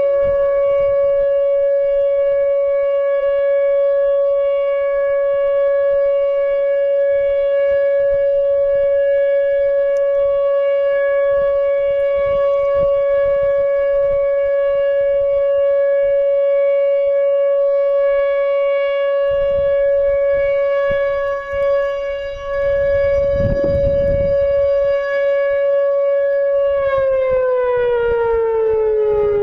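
Outdoor civil-defence warning siren sounding a tornado warning: one long, steady tone that starts to wind down and fall in pitch near the end. Wind rumbles on the microphone for a few seconds past the middle.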